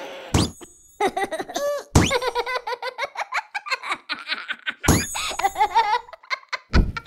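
A cartoon cat character laughing hard in rapid high-pitched bursts, broken by a few sharp sound-effect hits.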